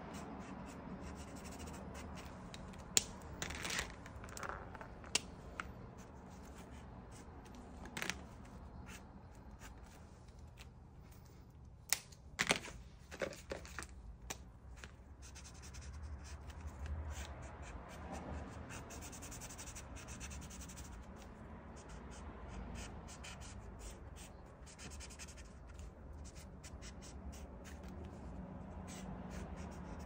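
Acrylic paint marker tips scratching across a canvas panel in continuous strokes. A few sharp clicks and taps in the first half come from markers being handled and swapped.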